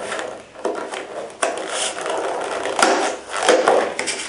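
Clear plastic clamshell blister pack being pried apart and handled, its stiff plastic crinkling and crackling unevenly, with a few sharper cracks as the halves come apart.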